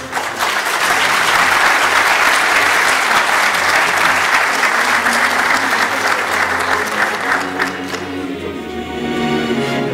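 Audience applauding over background music; the clapping starts right away and dies out about eight seconds in, leaving the music playing.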